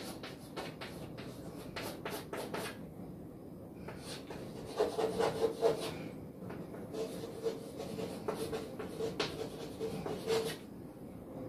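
Chalk writing on a chalkboard: a run of short scratching strokes and light taps, with a faint stuttering squeak of the chalk from about five seconds in until near the end.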